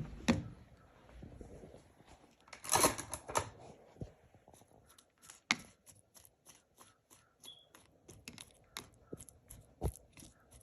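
Spoon stirring a mix of honey, lemon and lime pieces and crushed ginger, knocking against the container in a string of short clicks, with a louder clatter of knocks about three seconds in.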